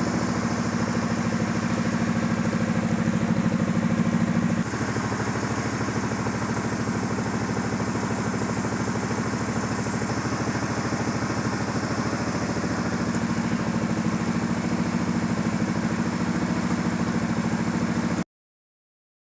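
Kawasaki Brute Force 750 ATV's V-twin engine running steadily, easing off slightly about four and a half seconds in. The sound cuts off abruptly near the end.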